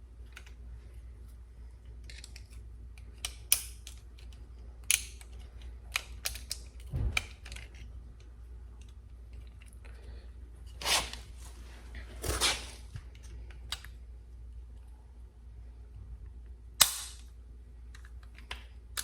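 Scattered sharp clicks and a few short scrapes of hard plastic and metal parts being handled, as the old outer door handle assembly of a 2012 Fiat 500 is worked on to get at its lock cylinder clip. The sharpest click comes near the end.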